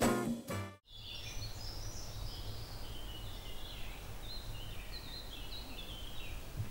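Birds chirping and singing in short high phrases over a steady low outdoor rumble. A music track cuts off within the first second.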